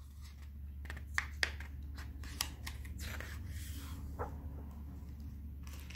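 Hands handling and turning the pages of a hardcover picture book: faint paper rustles and light taps, with a soft sliding rustle partway through, over a low steady hum.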